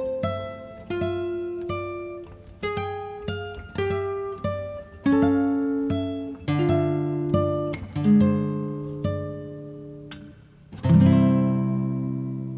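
Background music on acoustic guitar, picked note by note. Near the end a fuller chord is struck and rings out, fading away.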